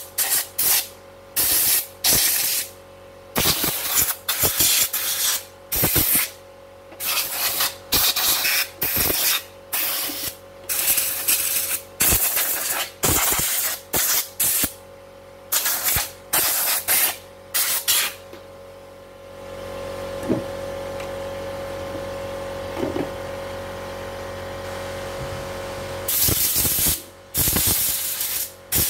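Compressed air from a handheld blow gun fired in many short blasts into an opened embroidery machine, blowing out the dirt. For several seconds in the second half the blasts stop and a steadier, lower, quieter sound with a constant tone takes over, then the short blasts resume near the end.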